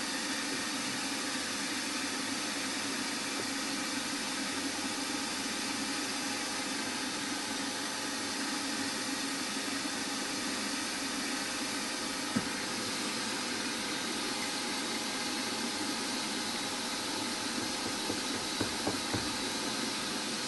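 Small milling machine running steadily with an even whirring hiss, its spindle turning while the tool is clear of the work. A single sharp click about twelve seconds in, and a few light ticks near the end.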